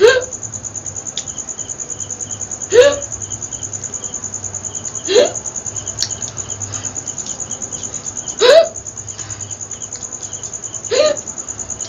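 A woman hiccuping five times, one short hiccup about every two and a half seconds. A steady high chirring runs underneath.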